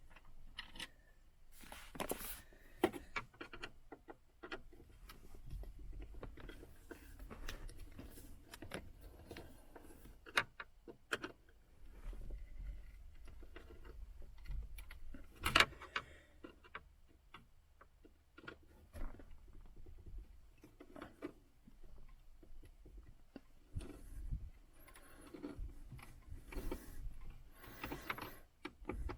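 Scattered clicks, taps and scrapes of hand tools on screws and plastic dashboard trim as a car radio is unscrewed and worked loose, with sharper knocks about 2 and 15 seconds in.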